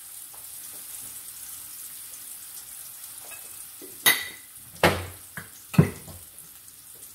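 Salmon fillet frying in oil with garlic in a pan: a faint, steady sizzle. About four seconds in, four sharp knocks and clatters come within two seconds.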